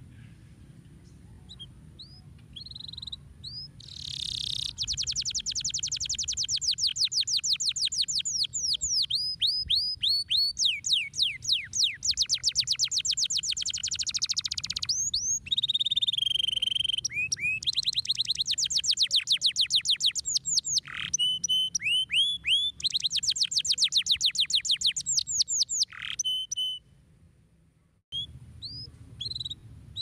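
Domestic canary singing a long song of fast trills, rapid runs of repeated high notes with short breaks, starting about four seconds in and stopping a few seconds before the end.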